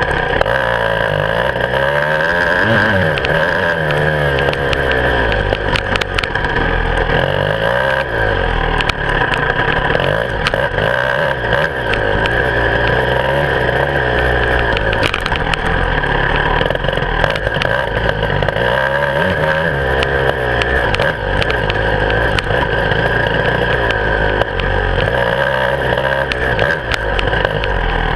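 Beta 300 RR two-stroke enduro motorcycle engine, heard close from the handlebars while riding a dirt track. Its pitch rises and drops again and again as the throttle opens and closes, with scattered clicks and knocks from the bike over the rough ground.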